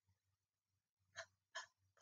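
Near silence: room tone, with two faint brief sounds a little past halfway.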